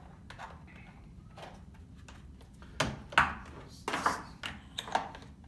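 Hard plastic carrying case and soldering iron being handled: a few faint clicks, then, from about halfway, several sharp plastic knocks and clatters as the iron and its cord are lifted out of the case.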